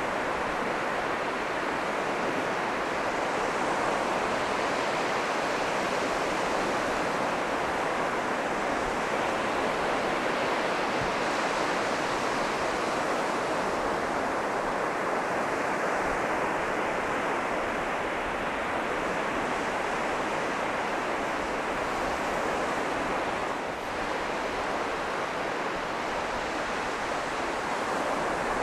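North Sea surf breaking and washing steadily onto the beach.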